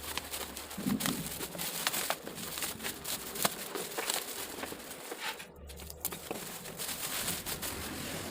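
Plastic packaging crinkling and hard plastic parts knocking and clicking as a pressure sprayer is handled and unpacked, in a run of irregular sharp clicks and rustles.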